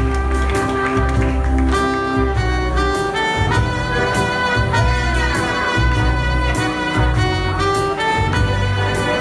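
Small live jazz band playing: trumpet and two saxophones carry the tune over electronic keyboard accompaniment and a pulsing bass.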